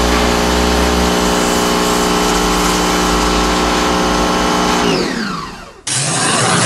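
Electric pressure washer's motor running with a steady hum, then dropping in pitch and winding down about five seconds in. Near the end it gives way abruptly to a hiss of water spray with a lower hum under it.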